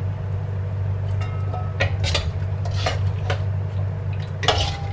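Metal ladle and spatula scraping and clinking against a stainless steel wok as food is scooped out. There are a few sharp clinks, the loudest near the end, over a steady low hum.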